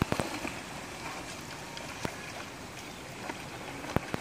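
Shallow water splashing and sloshing as a man wades and a dog swims, over a steady hiss, with a few sharp clicks.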